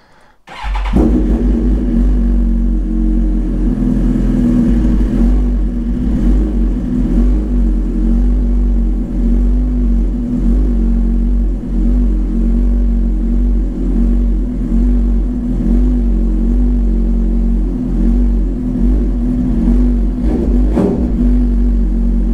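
Suzuki GSX-R1000 K8's inline-four engine, breathing through an aftermarket Cobra dual exhaust with the catalyst removed, starts about half a second in and then idles steadily at around 1350 rpm.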